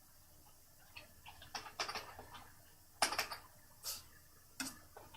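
Scattered, irregular clicks and taps of a computer keyboard and mouse, a few light ones then a louder cluster about three seconds in.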